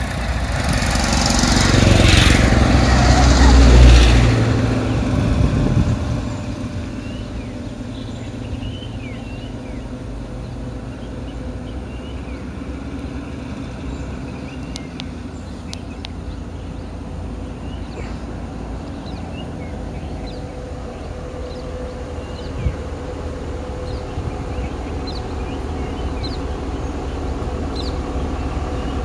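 Road vehicles drive past close by, swelling to their loudest about four seconds in and fading away by six. A vehicle engine then idles steadily, with faint high chirps over it.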